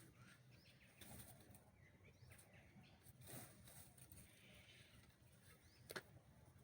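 Near silence: faint outdoor ambience with scattered soft rustles and ticks, and one sharp click about six seconds in.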